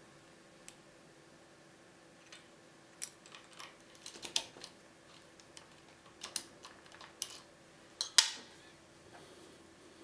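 Key sliding into and out of a Métalux euro-profile pin-tumbler lock cylinder: a run of small metallic clicks and scrapes as it rides over the pins, starting about three seconds in, with the sharpest click about eight seconds in.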